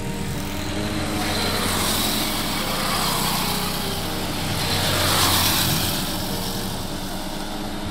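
A vehicle engine running steadily while travelling at road speed, under road and wind rush that swells twice, about two seconds in and again about five seconds in.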